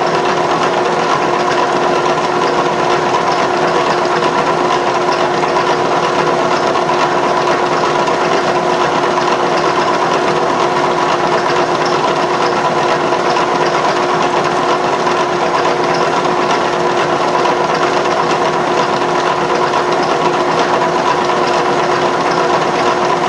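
Vertical milling machine running steadily with its spindle turning, a constant motor whine with several held pitches that does not change.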